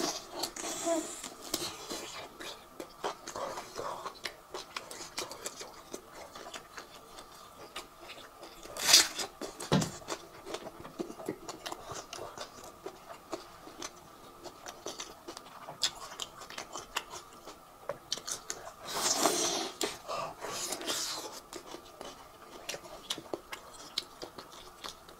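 Close-miked chewing and biting of braised beef off the bone: wet mouth clicks and smacks throughout, with a sharp louder bite about nine seconds in and a longer louder stretch around nineteen to twenty seconds.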